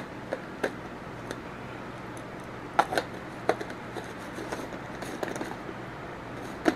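Small clicks and scrapes as the stainless-steel top of a battery-operated pepper grinder is screwed onto its clear plastic chamber full of peppercorns. A few sharper clicks are scattered through, over a faint steady hum.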